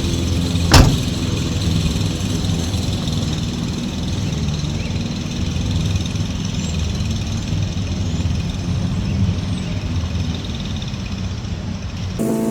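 Toro Smart Stow self-propelled gas push mower's engine running steadily while mowing, with one sharp knock a little under a second in.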